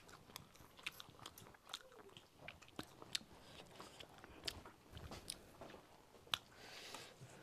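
People eating a meal: irregular light clicks and taps of chopsticks against bowls and the wok, with chewing.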